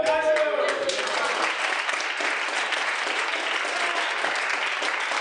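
A group of people clapping, a dense round of applause that starts about half a second in. It follows the tail end of the group's long voiced call falling in pitch.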